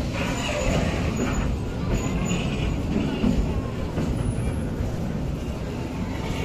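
Empty container flatcars of a freight train rolling past close by: a steady low rumble of steel wheels on the rails.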